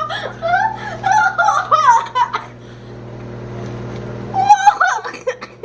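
Excited wordless voices, giggling and squealing for about two seconds and again in a short burst near the end, over a steady low hum.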